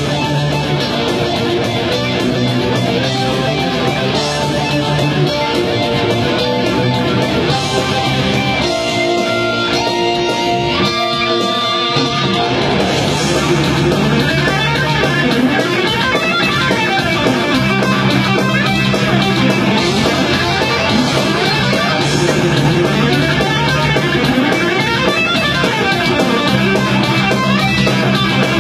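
Electric guitar playing fast neoclassical sweep-picked arpeggios in a metal style, over held low backing notes that change every couple of seconds.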